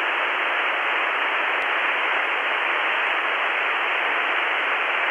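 Steady hiss of open-squelch static from a Radtel RT-860 handheld's speaker, tuned to 27.555 MHz upper sideband with no station transmitting: the empty CB channel between skip calls. There is a faint tick about one and a half seconds in.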